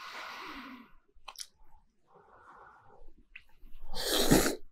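A person blowing on a lifted bundle of thick noodles to cool them, then a loud slurp as the noodles are sucked in near the end.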